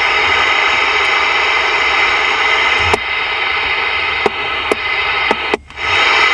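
Band noise hissing from a Ranger VR-9000 multimode CB receiver's speaker on an empty 26.5 MHz channel with the preamp on. A few short clicks come as the channel is stepped up, and near the end the hiss cuts out for a moment, then comes back.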